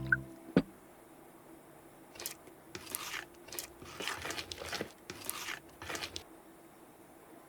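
Cartoon sound effects: a single sharp knock about half a second in, then a quick run of short crinkling, rustling noises between about two and six seconds.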